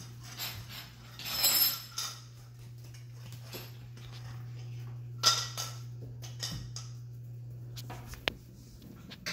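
A metal spoon clattering and scraping on a ceramic tile floor as Chihuahua puppies push it around, with a loud clatter about a second and a half in, another about five seconds in and a sharp click near the end. A steady low hum runs underneath.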